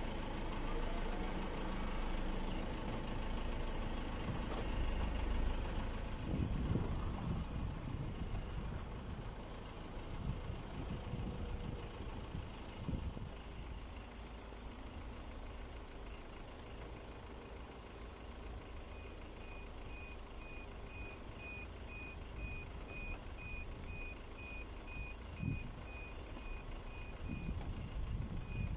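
Iveco bus engine idling, a steady rumble, with a run of short high beeps about twice a second through the last third and a few faint knocks.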